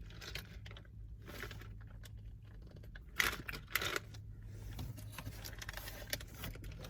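A handful of short, scattered crackles and rustles from a snack and its packaging being handled, the loudest about three seconds in.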